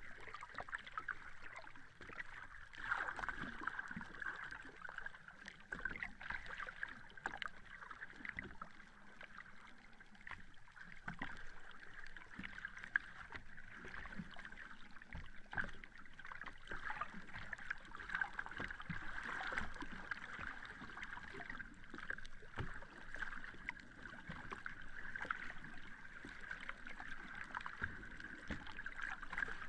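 Sea water lapping and splashing: a continuous wash of water noise with many small, irregular splashes, swelling and easing unevenly.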